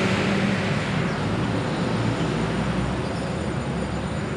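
Steady low rumble and hiss of background noise, with no distinct events.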